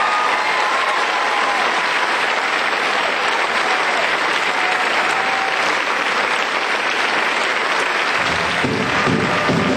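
Audience applauding steadily after a stage musical number. About eight seconds in, the live pit band starts playing over the clapping.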